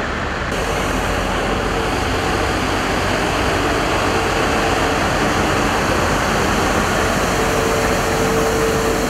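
Road-sweeper truck working at close range: its engine, spinning side brush and water spray jets make a steady rushing noise. A steady whine comes in briefly around the middle and again near the end.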